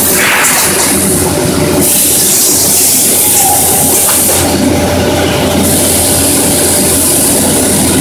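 Automatic metal-disc grinding and washing machine running: a loud, steady mechanical hum and clatter with a high hiss over it that cuts out briefly twice, for about a second the second time.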